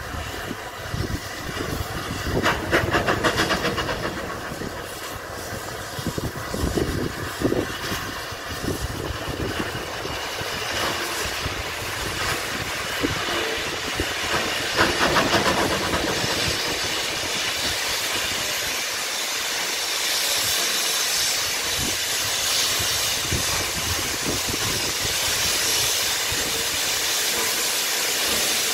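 Rebuilt Merchant Navy class three-cylinder steam locomotive pulling away. Short bursts of rapid exhaust beats about 3 s and 15 s in as the driving wheels slip, then a steady hiss of steam from the cylinder drain cocks as it gets going.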